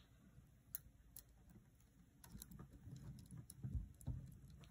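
Faint handling sounds of beadwork: plastic pony beads clicking lightly now and then as fishing line is threaded through them, with soft rubbing and low bumps from the fingers.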